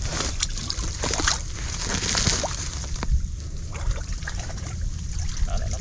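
Hands groping through shallow, muddy water while feeling the bottom for freshwater mussels: irregular sloshing, splashing and trickling, over a steady low rumble.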